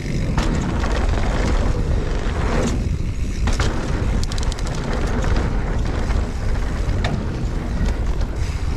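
Wind buffeting the microphone of a mountain bike being ridden along a dirt trail, with a steady rumble of tyre noise and scattered clicks and rattles from the bike over bumps.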